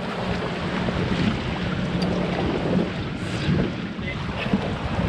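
Wind rushing over the microphone above water slapping against a small boat's hull, with a faint steady low hum underneath.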